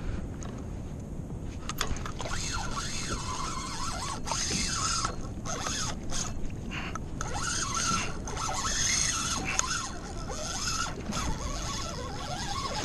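Kayak pedal drive being pedalled, its mechanism squeaking and scraping irregularly, over a steady hiss of water rushing along the hull.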